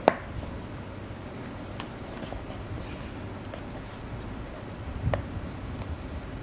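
Handling of small white cardboard packaging: light rustling with scattered small clicks, a sharp tap right at the start and another about five seconds in.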